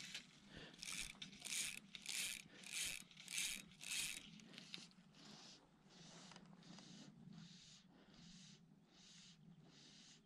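Fly line being pulled off a fly reel in quick pulls, the reel's click drag giving a short zipping ratchet with each pull, six loud ones in the first four seconds. Fainter rasps follow at the same pace.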